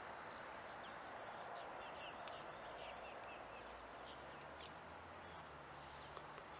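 Faint outdoor ambience: a low, steady hiss with scattered short, high bird chirps.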